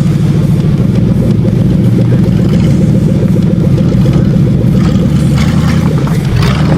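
A 1998 Lincoln Town Car's 4.6-litre V8 running loud and steady with a rapid, rough exhaust beat; a few sharper knocks join near the end.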